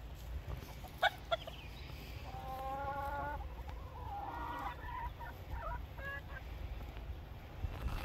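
Chickens clucking, with one drawn-out call of about a second and several shorter calls after it. Two sharp clicks come about a second in, over a low steady rumble.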